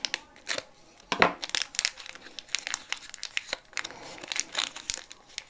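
A small clear plastic packaging bag crinkling and crackling as it is handled and opened by hand, with one sharper crackle about a second in.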